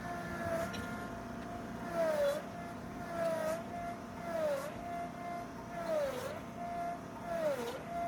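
Tractor engine running hard at high revs, its steady whine dipping in pitch and getting louder five times, about every second and a half, as it bogs under load.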